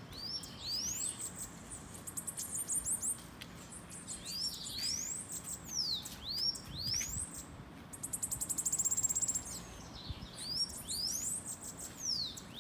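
Two bananaquits singing: a string of high, thin notes that sweep up and down, with a rapid high trill near the end.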